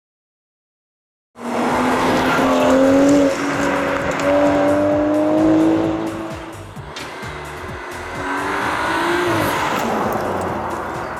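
Car engine accelerating hard after about a second and a half of silence, its pitch climbing with short dips at the gear changes, then easing off and rising again near the end.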